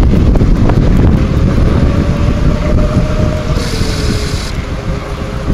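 Wind buffeting the microphone of a moving bicycle, a loud steady rumble over the rolling of tyres on a paved path, with a faint whine that slowly drops in pitch.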